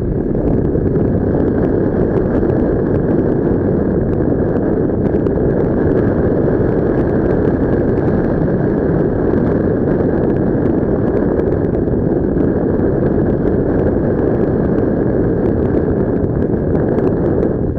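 Wind noise on the microphone in paraglider flight: airflow rushing steadily over the mic as a dense, low, unbroken noise.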